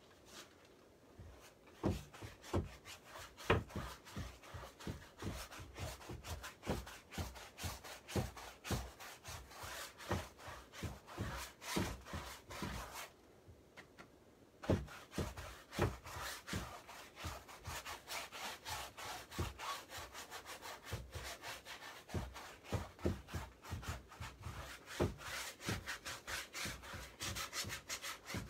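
Paintbrush scrubbing paint onto a stretched canvas in quick, repeated scratchy back-and-forth strokes, with a short pause a little before halfway.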